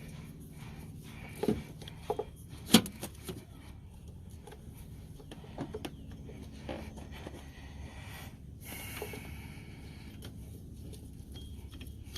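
Hand work on a serpentine belt going onto the engine's pulleys: scattered clicks and knocks, the sharpest about three seconds in, with rubbing and scraping of the belt. A steady low hum runs underneath.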